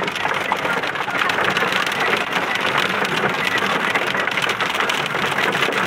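Heavy hailstorm: hailstones and rain pelting down in a dense, steady patter of countless small impacts, heard from inside a parked car.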